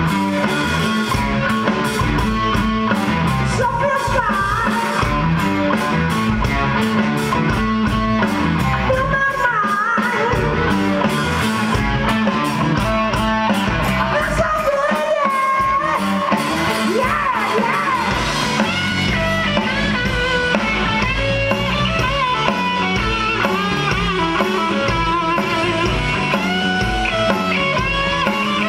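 Live rock band playing: drums and bass under a Les Paul-style electric guitar, with a lead singer in the first part. In the second half an electric guitar lead takes over, full of bent notes.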